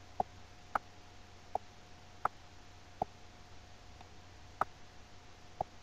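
Computer mouse clicking: about seven short, sharp clicks at uneven intervals, over a faint steady electrical hum.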